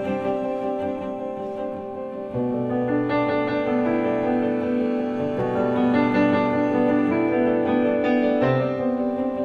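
Slow instrumental background music led by piano, with held chords; it grows fuller and louder about two and a half seconds in.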